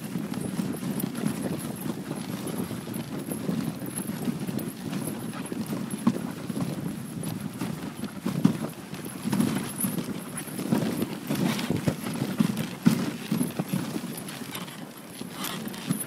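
Dog sled moving fast over a snowy trail behind a running team of sled dogs: a steady low rumble of the sled over the snow with uneven knocks and rattles.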